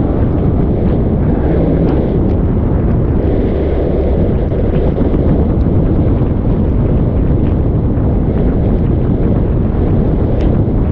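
Steady wind buffeting on the microphone of a camera moving at road speed, with a low rumble of road and tyre noise on wet tarmac beneath it.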